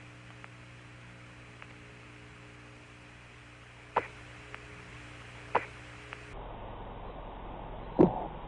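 Apollo 15 lunar-surface radio transmission: steady hiss and hum with two sharp clicks about halfway through, then a louder thud near the end, which the narrator takes for the cord's metal end-locks striking the lunar module.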